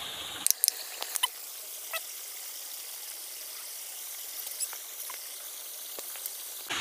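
Small waterfall and stream running into a pool: a steady, thin hiss of falling water, with a few small clicks, most of them in the first second and a half.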